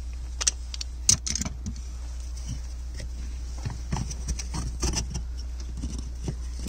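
Scattered clicks and knocks as a new Bosch fuel filter canister and its rubber fuel hose are handled and pushed into a metal mounting bracket, the sharpest knock about a second in. A steady low hum runs underneath.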